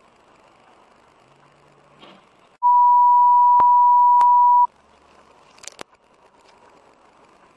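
A single loud, steady electronic beep at one pitch, lasting about two seconds, with the faint background noise cut out beneath it. Faint steady car-cabin noise comes before and after it, and a short click follows about a second after the beep ends.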